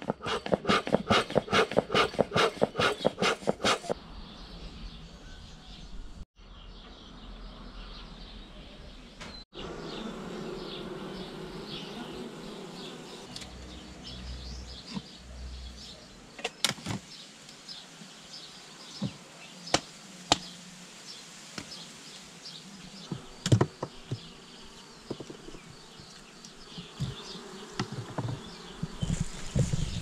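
Honeybees buzzing steadily around open wooden hives, broken by a few sharp knocks as the hive is worked. In the first few seconds, a bee smoker's bellows puff rhythmically, about four puffs a second.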